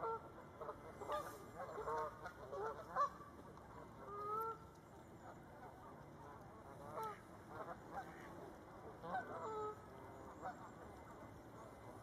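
Canada geese honking. Short calls come in bursts, busiest in the first three seconds, with a longer honk about four seconds in and more clusters around seven and nine seconds in.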